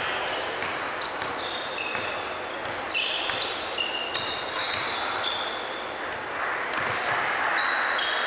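Basketball game play on a hardwood court: sneakers squeaking on the floor in many short, high-pitched chirps, with the ball bouncing now and then.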